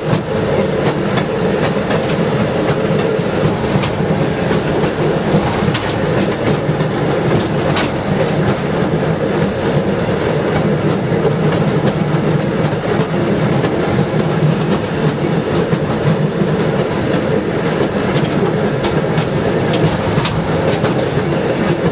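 Motorized railroad speeder car rolling steadily along jointed track, its wheels clacking over the rail joints with a few sharper clicks along the way.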